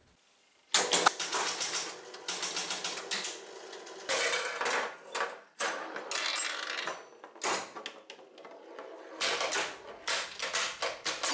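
Bally 4 Queens electromechanical pinball machine starting a new game: after a brief silence, a fast clatter of relays and score reels resetting. Then come repeated bursts of mechanical clicking as the ball is played, with a bell ringing near the end.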